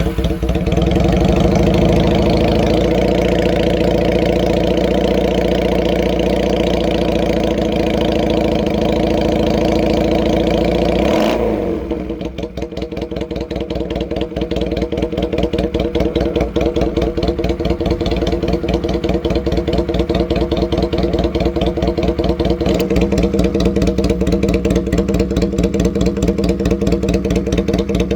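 Honda Rebel CA125's small parallel-twin engine running through new BSM dual side pipes, first at a steady raised idle. About eleven seconds in, the revs drop and it settles into a slower, evenly pulsing idle.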